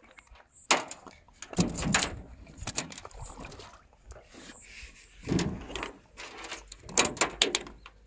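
Irregular knocks and thuds on a boat deck as a freshly caught fish is unhooked and handled, coming in clusters about a second in, around two seconds, and twice more in the second half.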